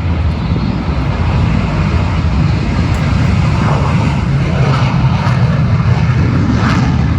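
Twin jet engines of the Hot Streak II jet truck running loud and steady at high power, with a deep low end and some crackle higher up in the second half.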